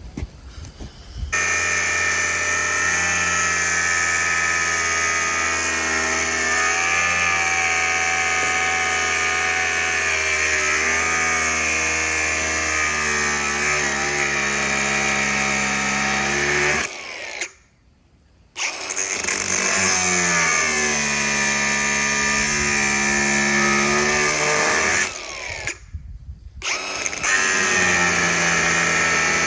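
Handheld power tool running in long stretches, its pitch sagging and recovering as it loads up, with a brief stop in the middle and another easing-off near the end.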